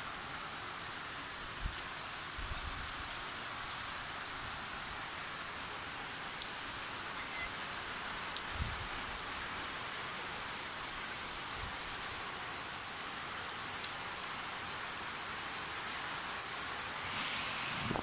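Steady rain falling, an even patter with a few faint low knocks scattered through it.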